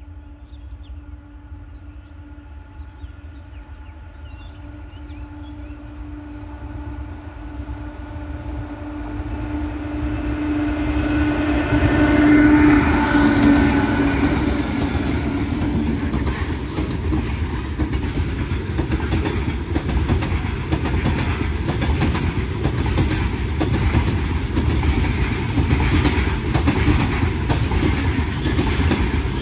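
Freight train hauled by electric locomotives approaching with a long, steady horn blast. The horn grows louder until the locomotives pass about 13 seconds in, then fades. After that the wagons keep rolling by with a steady rumble and wheel clatter.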